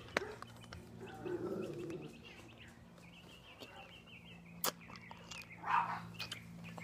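Quiet backyard ambience: a small bird chirping faintly for about a second and a half midway, over a steady low hum. A sharp click comes about two-thirds of the way in and a short breathy hiss near the end.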